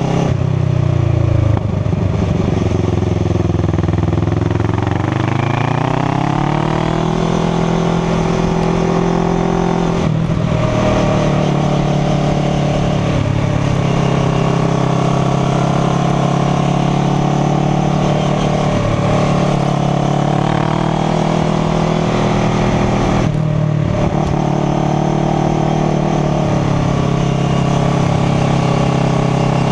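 Kawasaki Ninja 250's parallel-twin engine running under way, climbing in pitch as it accelerates about two to seven seconds in, then holding a fairly steady note. The note drops briefly about ten seconds in and again near twenty-three seconds, over a steady rush of wind.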